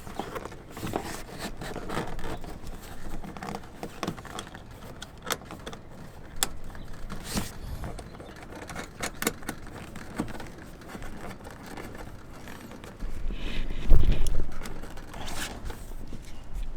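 Small metal hardware clicking and scraping as a nut is fitted by hand onto a mud flap's mounting bolt, with a heavier thump and low rumble near the end.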